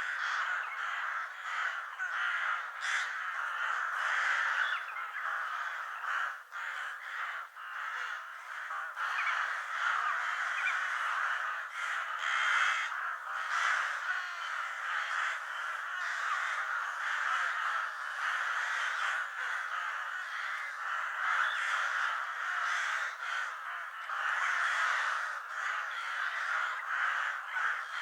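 A flock of crows cawing continuously, many calls overlapping into a dense, unbroken chorus.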